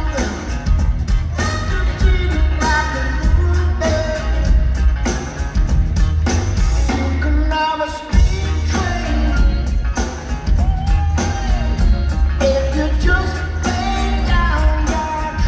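A rock band playing live through a stadium PA, with a male lead singer, heavy bass and drums, recorded from within the crowd. About halfway through, the bass drops out for a moment and comes back in on a hit.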